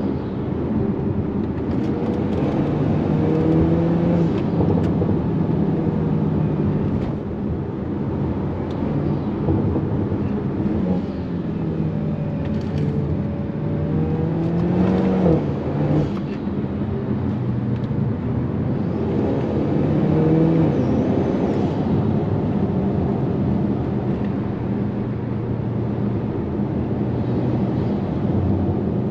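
Hyundai Kona N's 2.0-litre turbocharged four-cylinder engine heard from inside the cabin under hard driving, its pitch climbing several times and then dropping as the revs build and fall away. A few short sharp cracks come through over the engine.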